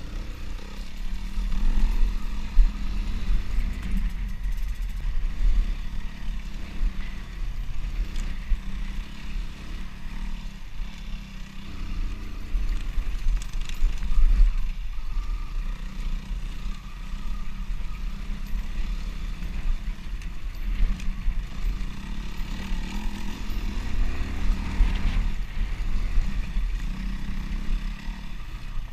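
Dirt bike engine running under the rider while riding a rough dirt trail, its loudness rising and falling with the throttle, over a heavy low rumble.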